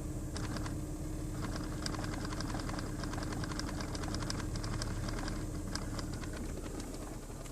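A rapid, irregular gurgling crackle of small clicks from under the dash of a 2005 Toyota Sienna, over a steady low hum. It sounds like water gurgling through something, but because it also occurs with the key on and the engine off, the owner suspects something electrical.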